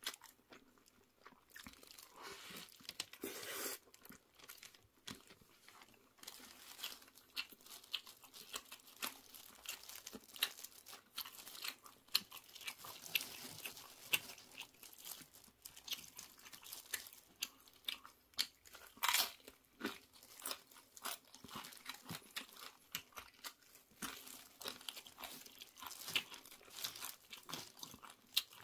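Tortilla chips being bitten and chewed: many sharp, irregular crunches one after another.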